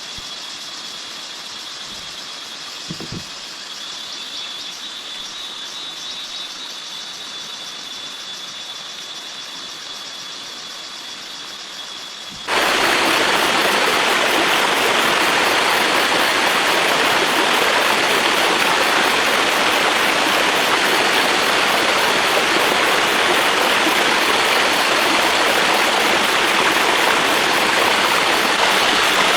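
Steady hiss of rain with a thin, steady high whine over it. About twelve seconds in it cuts abruptly to a much louder, steady rushing of water, heavy rain or a running stream.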